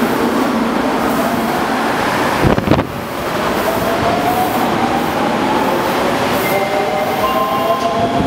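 Kita-Osaka Kyuko 8000 series subway train pulling out and accelerating: the motor whine climbs steadily in pitch over the wheels' rumble on the rails. A loud double thump comes about two and a half seconds in.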